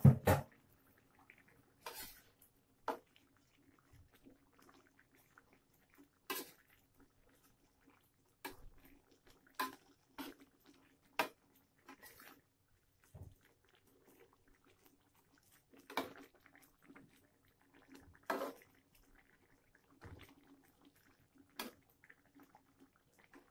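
Metal spatula scraping and clinking against a wok as a saucy stir-fry is stirred, in short irregular strokes a second or two apart, over a faint steady hum.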